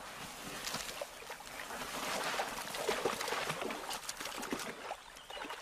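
Giant otters splashing into river water, an irregular patter of splashes and sloshing that grows louder about two seconds in.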